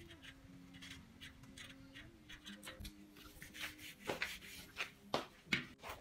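Hands handling a bicycle wheel hub and wiping it with a cloth: irregular rubbing, rustling and knocks that grow louder and busier in the second half, with a few sharp knocks. Faint background music underneath.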